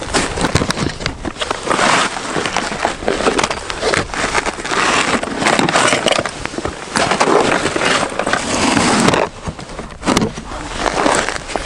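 Close rustling, clattering and knocking of ice-fishing gear being handled: a bag pulled from a plastic sled, then a plastic fishing box opened and things taken out of it.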